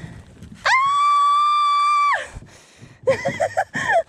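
A woman's long, high-pitched scream of excitement, held for about a second and a half and falling away at the end, followed near the end by a few short excited squeals.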